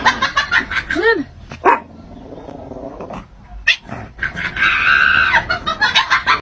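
Domestic cat making odd, unusual vocalizations: a quick run of short calls that rise and fall in pitch, then one longer held call about five seconds in.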